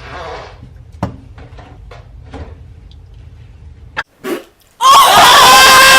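A woman's loud, drawn-out fart with a buzzing tone, starting about five seconds in and lasting over a second. Before it there is only a faint low rumble and a few light clicks.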